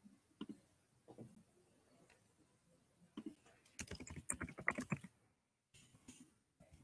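Faint computer keyboard typing: a few separate clicks, then a quick run of keystrokes about four seconds in as a search phrase is typed.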